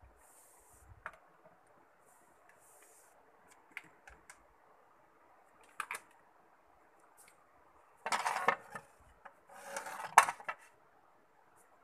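Glass jars and tumblers clinking and knocking as they are picked up and set down on a shelf, in a few scattered taps. Near the end come two louder stretches of handling noise, the second with a sharp glass knock.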